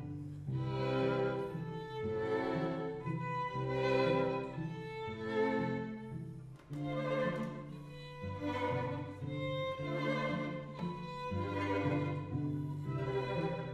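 String quartet of two violins, viola and cello playing together: held chords over low cello notes, swelling with bowed strokes about every second and a half, with a brief dip in loudness about six and a half seconds in.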